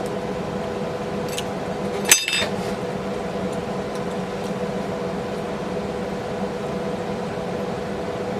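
A single sharp clink of glass, ringing briefly, about two seconds in, over a steady low hum.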